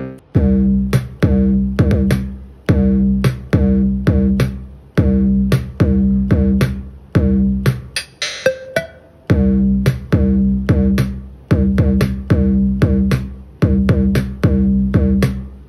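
Electronic drum-machine beat played back through a Xiaomi Mi Portable Bluetooth Speaker from an instrument plugged into its Aux In: a steady rhythm of sharp hits with a low pitched thump, several a second.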